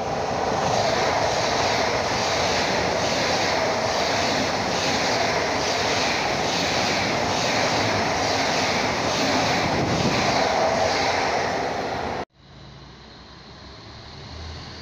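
Deutsche Bahn ICE high-speed train running past along the platform: a loud, steady rush of wheels on rails with a regular beat. About twelve seconds in, the sound cuts to a much quieter low rumble from a standing diesel regional railcar, slowly growing louder.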